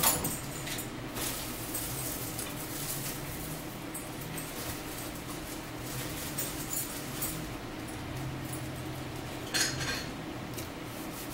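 Metal fork clinking and scraping against a plate while cutting food, with a few sharp clinks, the loudest at the very start and about ten seconds in. A steady low hum runs underneath.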